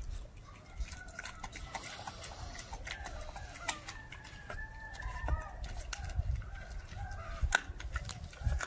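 German shepherd puppy chewing raw chicken quarter, the bone and meat cracking in sharp irregular clicks, with birds calling in the background.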